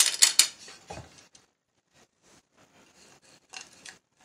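Handling noise as a metal chain necklace is put on a display bust: a quick run of loud clicks and rattles in the first half second, then faint scattered rubbing and clicks.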